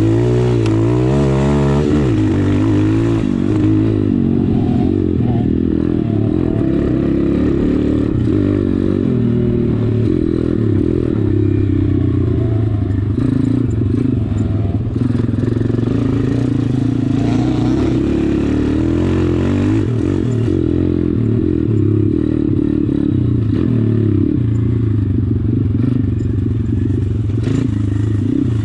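Off-road motorcycle with a 140cc YX single-cylinder four-stroke engine, ridden on a trail with the throttle opening and closing, so the engine note rises and falls. It revs up and down in quick succession over the first couple of seconds.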